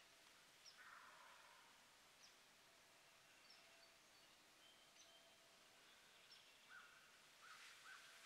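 Faint bird calls over quiet outdoor ambience: scattered short, high chirps throughout, and a run of short, lower calls starting about six and a half seconds in.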